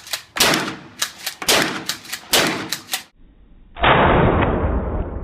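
Rapid gunfire: a string of sharp shots, several a second, each with a short ringing echo, stopping about three seconds in. Then comes a loud, steady rushing noise.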